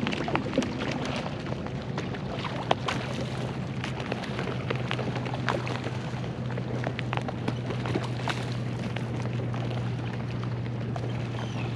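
Many small, scattered splashes and pops of fish breaking the calm sea surface, the sign of bluefish feeding on baitfish in a blitz, over a steady low hum.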